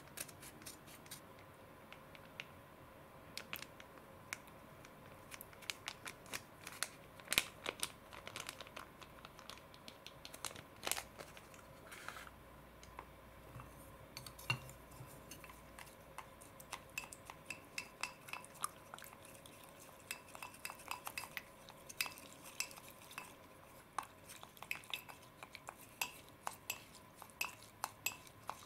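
Wooden chopsticks stirring and knocking against a glass bowl as slime gel is mixed, making many light, irregular clicks and clinks.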